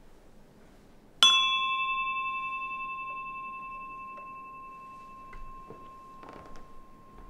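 A small brass altar bell is struck once about a second in to open the worship. It rings with a clear tone and several higher overtones that slowly fade, and the lowest tone is still sounding near the end. Faint knocks follow later.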